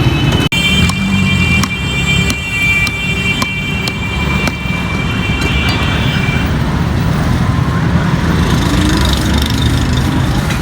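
Steady low rumble of road traffic. From about half a second in until about six seconds in, a high steady whine runs over it, with sharp knocks roughly twice a second.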